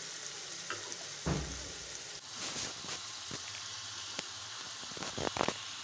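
Chicken and spices frying in a pan with a steady sizzle. A soft thump comes a little over a second in, and several light clicks and knocks follow in the second half.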